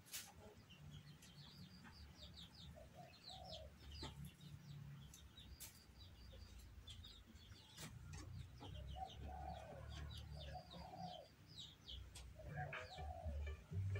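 Faint chickens clucking and small birds chirping in quick, repeated chirps, over a low rumble.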